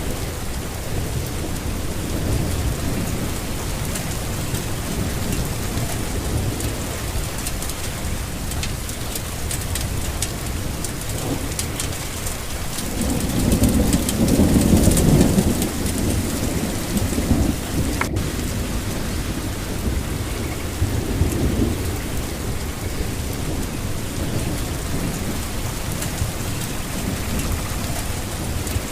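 Steady rain falling, with thunder rumbling low throughout and a louder roll of thunder about halfway through.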